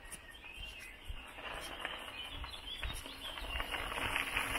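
Birds chirping faintly amid outdoor ambience, with a dense rustling crackle that grows louder near the end.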